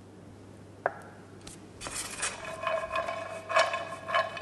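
A utensil knocking and scraping in a bowl, the bowl ringing on after each knock. There is one knock about a second in, then a rapid run of knocks from about two seconds on, typical of mixing seasoning into a salad.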